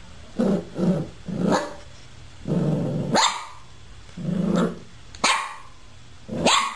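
A dog barking repeatedly, about seven barks, the first three short and quick and the later ones longer and drawn out.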